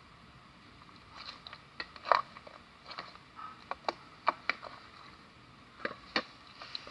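Homemade metallic slime being squeezed and poked by hand, giving irregular sharp clicks and small pops. The loudest comes just after two seconds in.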